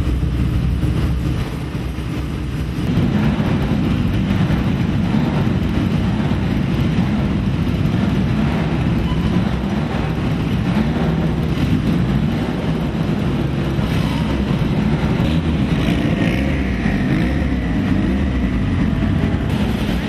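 Loud, steady rumble of car engines running, dipping briefly about two seconds in.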